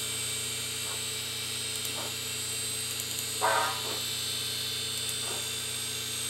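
Opened 1997 Fujitsu 2.4 GB hard drive running with its lid off: a steady whine and hum from the spindle motor and spinning platters, with a few short ticks and one louder chirp about three and a half seconds in as the read-write head seeks while files are read.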